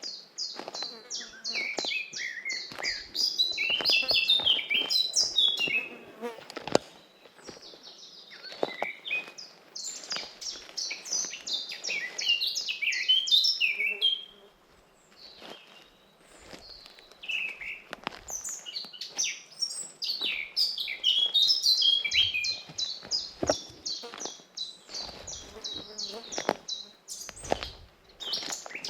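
Songbirds singing in the forest: long phrases of quick, high chirping notes that come in several stretches, with a lull of a few seconds around the middle.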